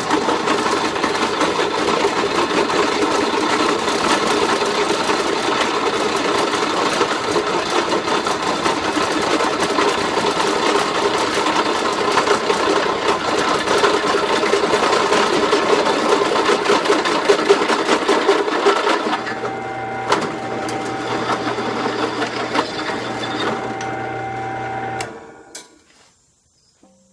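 A drill motor runs steadily while a bit bores a 3/4-inch hole through half-inch steel plate, with a dense grinding chatter from the cut. About 19 seconds in the cutting noise drops away and the motor runs on more freely, then it is switched off and stops about 25 seconds in.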